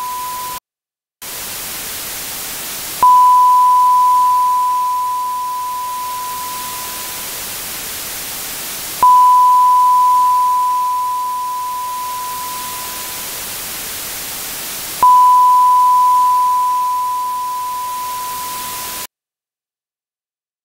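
A pure sine-wave ping sounds three times, about six seconds apart, each starting abruptly and fading out over about four seconds. Under it runs a steady, treble-heavy hiss: 16-bit dither noise made audible by an 80 dB boost. The hiss drops out briefly near the start and cuts off suddenly near the end.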